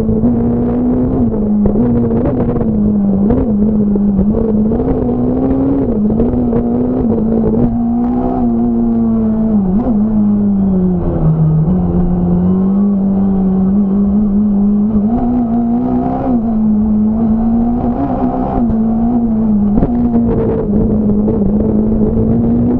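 Fiat Punto S1600 rally car's 1.6-litre four-cylinder engine at high revs, heard onboard. Its pitch rises and falls again and again through quick gear changes and lifts, drops lowest around the middle, then climbs back up.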